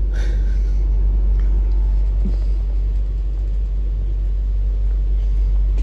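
Steady low rumble inside the passenger saloon of a Class 390 Pendolino train.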